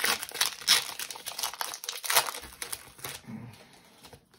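Foil wrapper of a Pokémon TCG booster pack crinkling as it is torn open and handled, in quick irregular crackles that die away after about three seconds.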